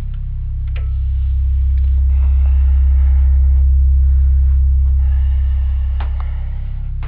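A loud, steady low hum that slowly swells and fades, with a few faint clicks and light rustling over it.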